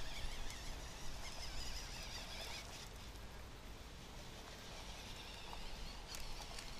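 Small electric drive motor and plastic gears of a Lego Technic RC truck (Lego Racers 8366 RC unit) buzzing as it drives off over asphalt, fading over the first few seconds as it pulls away. Low wind rumble on the microphone.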